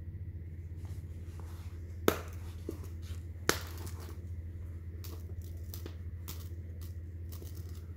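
Two metal snap fasteners on a canvas watch pouch popping open: two sharp clicks about a second and a half apart, followed by softer rustling and light clicks as the fabric flaps are handled, over a steady low hum.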